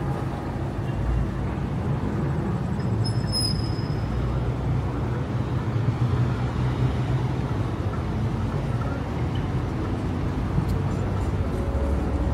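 Steady rumble of road traffic going past.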